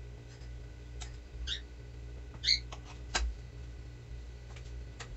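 Light knife clicks and taps while soft cookie dough is cut into pieces on a counter beside a metal baking tin, the firmest tap about three seconds in, with a couple of short high squeaks, over a low steady hum.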